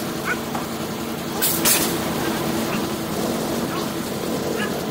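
Large truck's diesel engine idling steadily, with two short hisses of air about a second and a half in.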